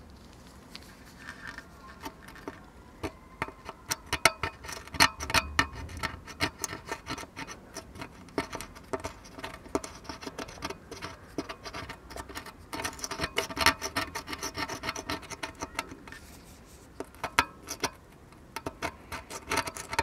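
Metal pick scraping leaked capacitor electrolyte and corrosion off an ECU circuit board, making irregular runs of small scratches and clicks. It eases off briefly shortly before the end.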